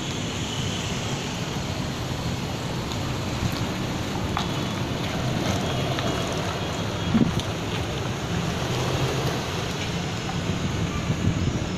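A 2010 Hummer H3's 3.7-litre inline-five engine running as the SUV drives up and past, heard through steady wind noise on the microphone. There is a brief thump about seven seconds in.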